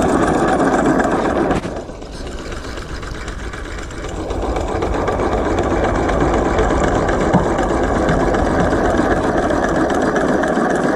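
Homemade two-cylinder solenoid engine running fast with a rapid mechanical clatter. It drops off about two seconds in, then picks back up over the next couple of seconds and runs steadily again.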